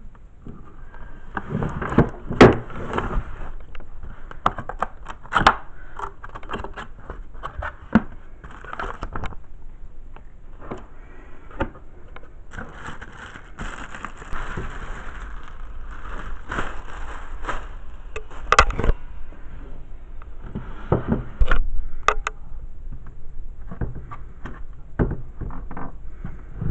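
Packaging being handled and unpacked: crackling and scraping, with irregular sharp knocks and clicks. The loudest knocks come about two and a half, eighteen and a half and twenty-one seconds in.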